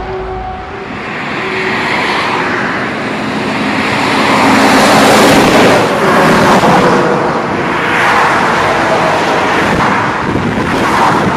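Busy highway traffic passing close by: lorries and cars go by one after another, their engine and tyre noise swelling loudest about five seconds in and again near eight and eleven seconds.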